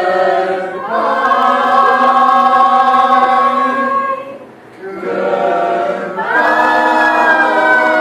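Several voices singing in harmony, holding long chords in a few sustained phrases, with one voice sliding down in pitch near the end.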